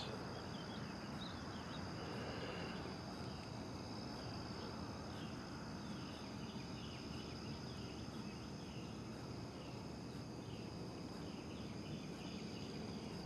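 Faint steady chorus of insects trilling, with short chirps repeating evenly a little faster than once a second.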